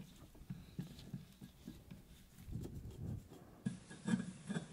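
Flathead screwdriver working the rusted screw out of the cast-iron head of an old bung borer: faint, irregular scrapes and small metallic clicks, with a few louder knocks near the end as the tool shifts on the countertop.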